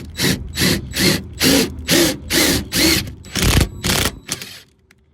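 Power drill driving a self-tapping screw into the door, run in short pulses of the trigger about two a second, each pulse spinning up and down; it stops about four seconds in.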